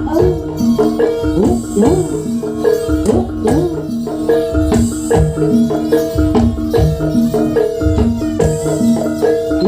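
Jaranan gamelan music: metallophones playing a fast repeating pattern of ringing notes over hand-drum strokes, in a steady rhythm.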